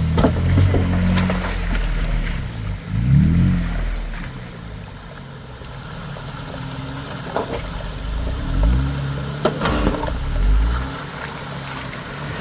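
Off-road vehicle engine revving up and down in short bursts several times, with a few sharp knocks and clunks in between.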